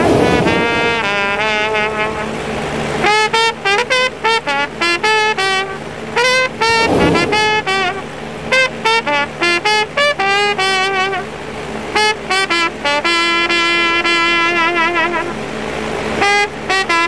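Jazz trumpet playing a quick, improvised-sounding melodic line over band accompaniment, with cymbal crashes at the start and about seven seconds in. Near the end it holds a long note with vibrato.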